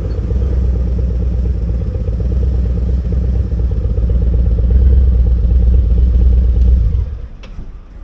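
Large touring motorcycle idling close by, a steady low pulsing engine note; it drops away sharply about seven seconds in.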